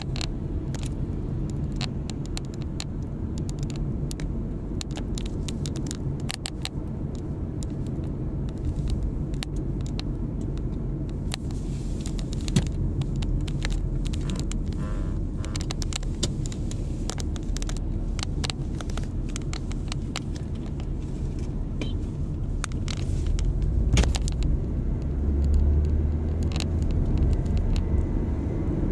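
Inside the cabin of a moving car: steady low road and engine rumble with frequent small clicks and rattles, growing louder near the end.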